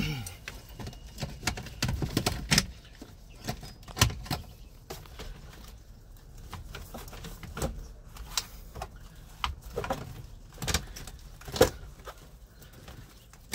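Irregular plastic clicks, knocks and rustles as a loosened fuse box and its wiring harness are shifted around under a car's dashboard, with two sharper knocks about 4 seconds in and near the end.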